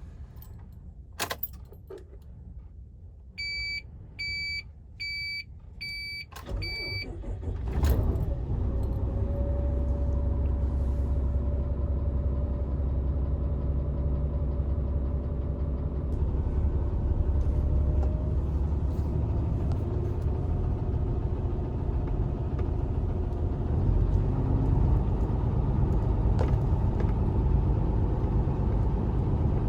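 Hino Profia heavy truck being started: a click, five short electronic beeps, then the diesel engine is cranked and catches about eight seconds in, and runs steadily afterwards.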